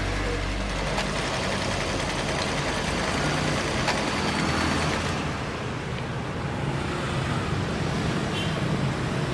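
Janome NS 385 sewing machine running with its external motor as it stitches, a steady motor hum with a fast even ticking.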